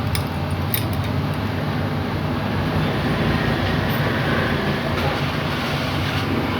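Steady low mechanical rumble, with a few light clicks in the first second.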